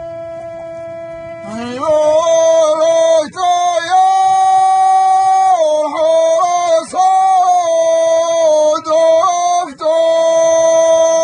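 Man singing hjeni, a Gulf Bedouin sung poem, in long drawn-out high notes that step up and down with short breaks between phrases. The voice becomes much louder and fuller about a second and a half in.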